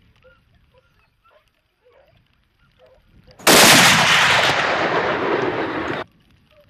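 A single rifle shot about three and a half seconds in. The loud bang rings on for about two and a half seconds, fading a little, then cuts off abruptly.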